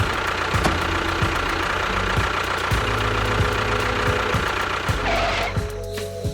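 Small engine running with a rapid knocking rattle, cutting off about five and a half seconds in.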